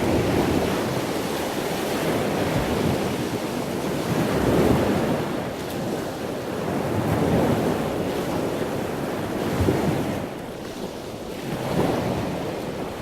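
Wind buffeting the microphone over the rush of waves, surging and easing every two to three seconds.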